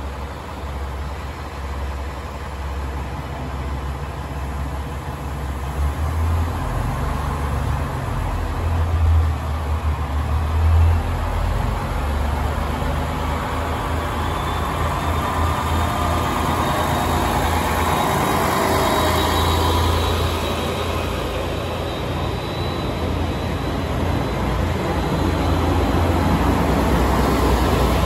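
JR West KiHa 47 diesel railcar pulling out of the station: a low diesel rumble that grows gradually louder as the cars move off past the platform.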